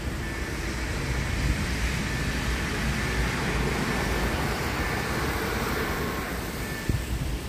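A red Koleje Wielkopolskie regional multiple-unit train passes over the level crossing, its wheel and running noise building up and dying away over several seconds. The crossing's electronic warning chime rings faintly behind it.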